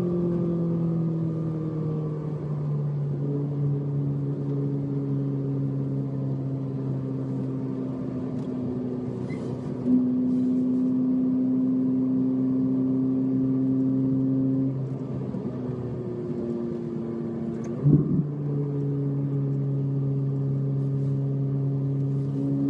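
Car engine heard from inside the cabin, running at steady revs. About halfway in it rises in pitch and gets louder, and it falls back a few seconds later. Near the end there is a quick sharp dip and jump in revs.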